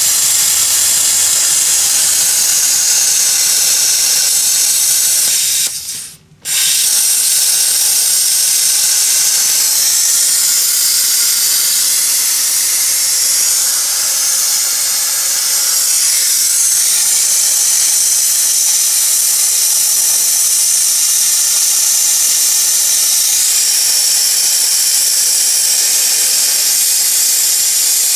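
Hypertherm Powermax 45 XP plasma torch cutting through half-inch steel plate and weld, a loud steady hiss of the arc and air. It stops for about a second roughly six seconds in, then starts again and runs on.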